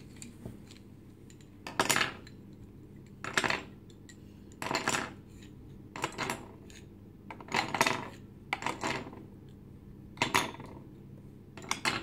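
Wooden spindles set one at a time into a compartment of a wooden Montessori spindle box, each landing with a short, sharp wooden clack, about every one and a half seconds, eight times, as nine spindles are counted out.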